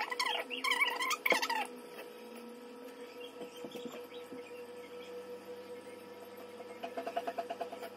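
Steady hum throughout. A high, wavering voice-like sound is heard in about the first second and a half, and a quick run of faint ticks comes near the end.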